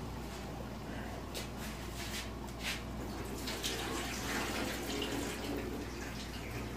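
Water splashing and draining as a bowl of soaked sella rice is tipped out over a steel sink, with a few light knocks first and a steady low hum underneath.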